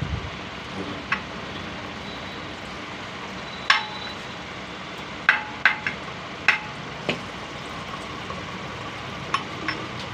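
Sharp metal-on-metal taps and clinks from a hammer and hand tools working the crankshaft into a Piaggio auto-rickshaw engine crankcase while the crankshaft is being set. There are about nine knocks, with a quick cluster of them around the middle, over a steady background noise.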